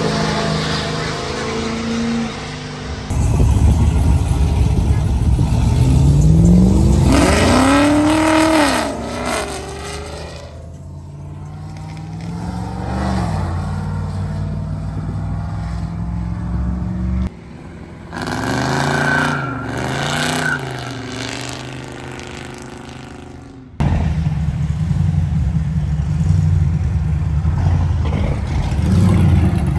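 Cars and pickup trucks driving past on a road, their engines accelerating hard with revs rising and falling, in several short clips cut together. The loudest moment is one engine revving up sharply about seven to nine seconds in.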